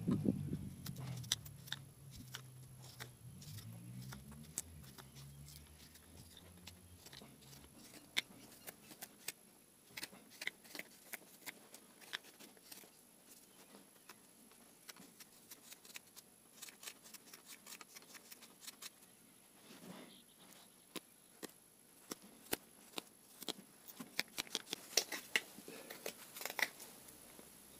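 Hook knife (spoon-carving knife) cutting shavings out of the bowl of a wooden ladle: irregular short crisp cuts, coming thicker near the end.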